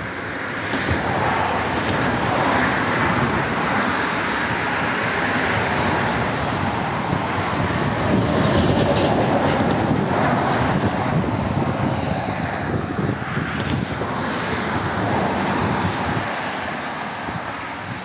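A passing vehicle: a steady engine and road noise that builds about a second in, holds loudest through the middle and fades near the end.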